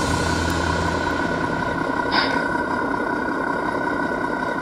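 RC truck sound module playing a recorded diesel truck idle through the model's onboard speaker. It idles steadily; the low rumble eases off about a second in, and there is one brief sharp burst about two seconds in.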